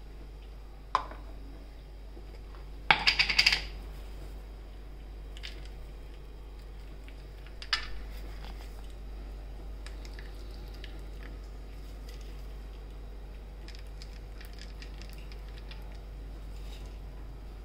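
Light kitchen clinks and ticks of food handling on a steel plate: a short clatter of sharp clinks about three seconds in, then scattered faint ticks as crunchy roasted chana mixture is sprinkled into crisp fried maida tokri cups.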